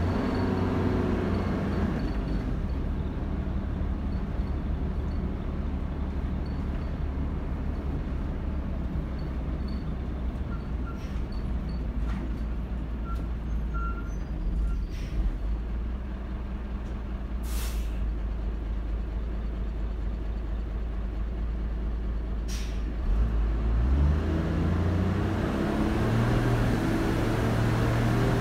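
Dennis Dart SLF single-decker bus heard from inside the saloon: a steady low engine rumble with two short hisses of air from the brake system. Near the end the engine note climbs in steps and gets louder as the bus accelerates hard through its Allison AT545 automatic gearbox.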